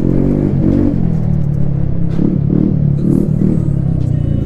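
TVS Ntorq 125 scooter's single-cylinder engine running loud through an aftermarket Akrapovic exhaust with its dB killer removed, the pitch rising and falling with the throttle.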